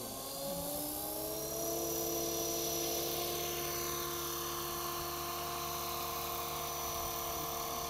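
Electric RC scale helicopter (an Align T-Rex 500 in an Airwolf body) spooling up. The whine of its motor and rotor rises in pitch over the first second or so, then holds steady at flying speed as it lifts off.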